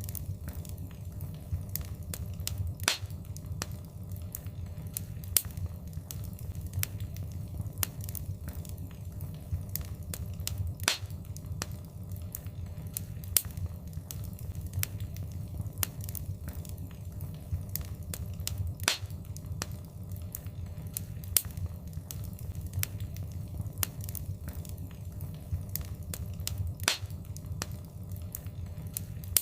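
Wood fire in a fireplace crackling: many small snaps and ticks over a steady low rumble, with a sharper pop about every eight seconds.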